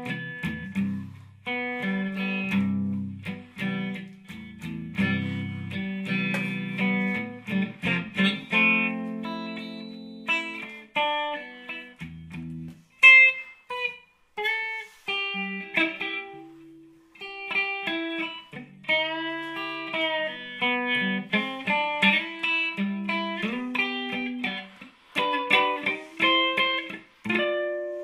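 Guitar music: a run of plucked notes and chords, each fading after it is picked.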